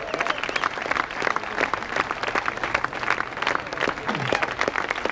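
Crowd applauding: many hands clapping in a dense, unbroken patter.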